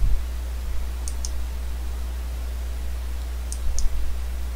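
Computer mouse clicking twice, each a quick press-and-release, about a second in and again about three and a half seconds in, as photos are paged through. A steady low hum runs under it, with soft low thumps at the start and around the second click.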